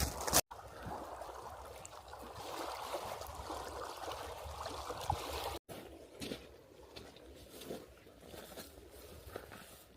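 Water trickling and gurgling, broken off for an instant twice; it is softer after the second break, with a few faint ticks.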